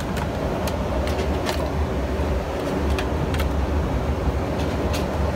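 Steady low rumble of an Embraer 190 airliner cabin, with a few sharp clicks as the seat's fold-out tray table is opened and laid flat.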